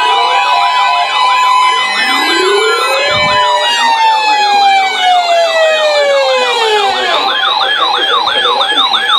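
Several sirens sounding at once, loud. Fast yelping sirens warble up and down about three to four times a second over slower wailing tones that rise and fall. One wail slides steadily down in pitch in the middle, and after that the yelps stand out clearly.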